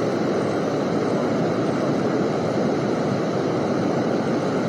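Steady rushing of flowing river water, an even, unbroken wash of noise.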